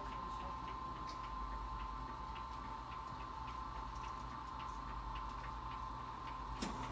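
Electric hospital bed's motor running as the bed is lowered: a steady whine with a low hum and faint regular ticking, with a click near the end.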